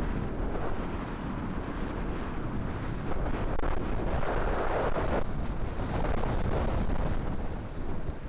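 Wind buffeting the microphone of a camera on a moving bicycle, a steady rumbling rush that grows louder about three seconds in.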